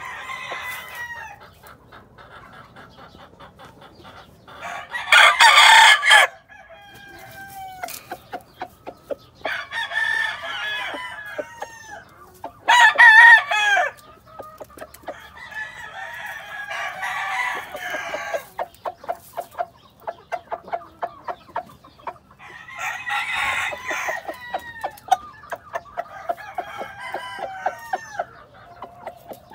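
Gamefowl roosters crowing again and again, about seven crows in all, loudest about five seconds in, around thirteen seconds and past twenty-two seconds. Quick short clucks and clicks fill the gaps between crows.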